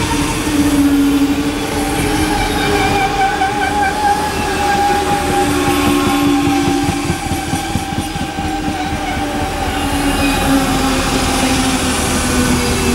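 A double-deck Transilien electric multiple unit running past: the steady rumble and clatter of its wheels on the rails, with long, steady whining tones held over it.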